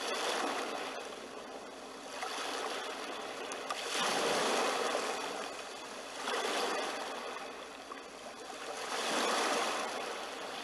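Ocean surf washing in, swelling and fading every few seconds.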